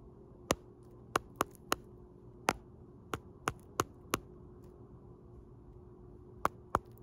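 A hen's beak pecking on a phone camera, about eleven sharp taps in irregular clusters, with a pause of about two seconds before a final pair of taps near the end.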